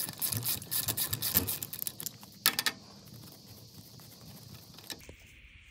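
Ratchet wrench clicking as it turns a thread tap into an injector hold-down bolt hole in a Mercedes OM648 diesel cylinder head, cutting oversize threads for a threaded insert. The clicks come in quick runs for about the first two and a half seconds, then only a faint hiss.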